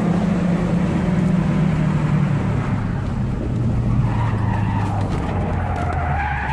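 A car engine running hard, its note dropping about two seconds in. In the second half, tyres squeal with a wavering, rising pitch as the car takes a bend.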